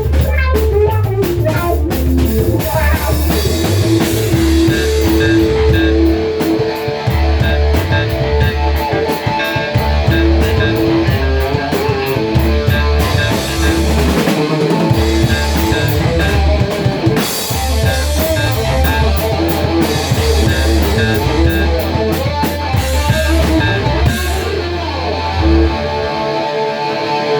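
Rock band instrumental with electric guitar, bass and drum kit playing steadily, stopping abruptly at the end.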